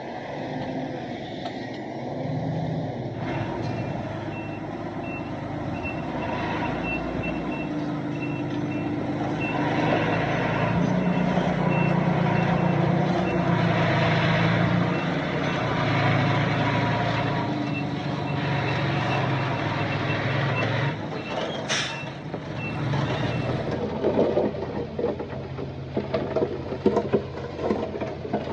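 A heavy truck's diesel engine running under load while its backup alarm beeps in a steady series. The beeping stops about three-quarters of the way through. Near the end comes a short hiss, then a run of irregular clattering knocks.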